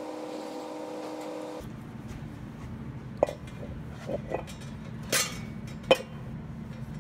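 A handful of sharp metallic clinks and clanks, about five, as the OS Giken flywheel is set onto the crankshaft flange and its bolts are started. They sit over a low rumble, and the loudest knocks fall about five and six seconds in. Before them, a steady hum runs for the first second and a half.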